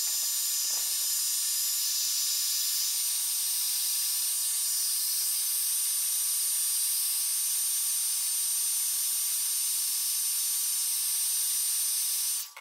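Hot-air blower running steadily, a rushing hiss with a thin high whine, switched on at the start and off about twelve seconds later. It is heating the iPad 2's glass to soften the adhesive holding the leftover bits of shattered digitizer glass.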